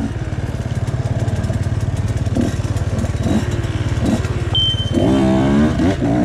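Husqvarna TX 125 two-stroke enduro motorcycle idling at the start with a few throttle blips, then revving up and accelerating away about five seconds in. A short high electronic beep sounds just before it pulls off, from the start's timing scanner.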